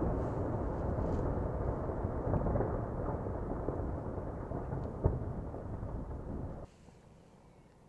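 Sakurajima volcano's eruption: a deep, steady rumble from the billowing ash column, slowly easing, with a single sharp crack about five seconds in. The rumble cuts off suddenly near the end, leaving only a faint low hiss.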